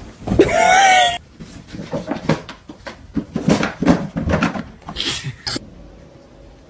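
A pet animal's loud, wavering cry lasting about a second, followed by a run of shorter, irregular cries and noises that stop a little before the end.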